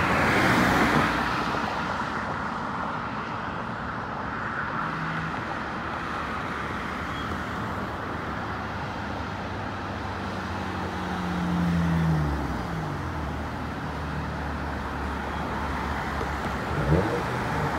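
Road traffic: cars passing over a steady tyre hiss. About ten to twelve seconds in, one vehicle's engine tone swells and falls in pitch as it goes by.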